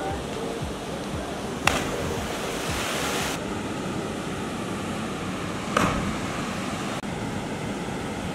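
Steady rush of a waterfall and river, with two short sharp knocks about two and six seconds in.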